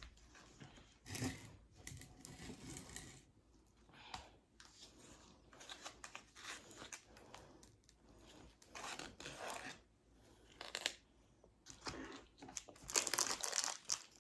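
Packaging crinkling and tearing in short, irregular bursts, as wrapping is handled and torn open.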